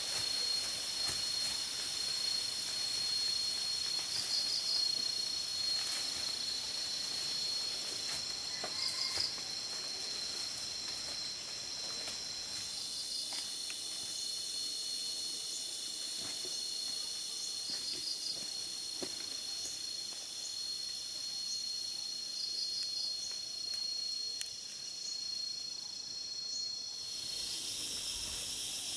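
Insects droning in one steady high-pitched tone, with short clusters of chirps repeating about every four to five seconds; the drone stops shortly before the end.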